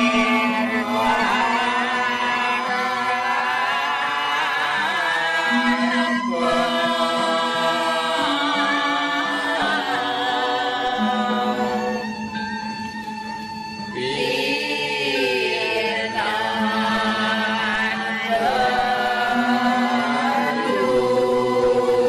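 Background music: a voice singing a slow, chant-like melody over a held low drone note that steps to a new pitch every few seconds. The voice drops out for about two seconds midway, then returns.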